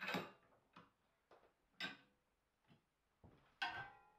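Sharp metallic clicks and knocks, about seven in four seconds, some ringing briefly: a steel clamp bar being shifted and set in a bench vise. The loudest knock is the first, with another strong one near the end.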